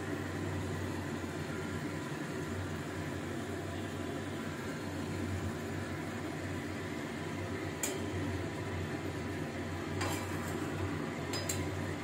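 Fish curry simmering in a kadai on a gas burner under a steady hum and hiss. A few sharp clicks of a spatula against the pan come in the second half.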